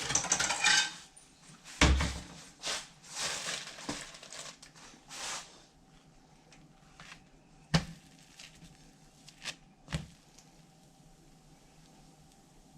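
Kitchen handling noises as food is dished up: rustling and scraping, a few sharp knocks and clatters, the loudest a dull thump about two seconds in. It then goes mostly quiet over a faint steady hum, broken by two or three single clicks.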